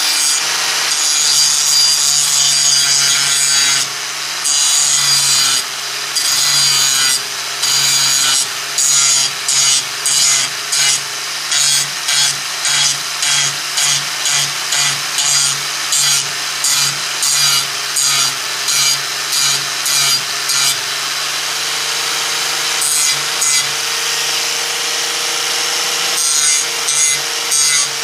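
Handheld angle grinder running while its disc grinds down the weld and edges of a repaired snowmobile rear-skid rail, smoothing the track-adjustment slot. A harsh scraping hiss sits over the steady motor hum: one long continuous grind at first, then quick repeated strokes about one to two a second. The grinder spins free for a few seconds, then a few more strokes come near the end.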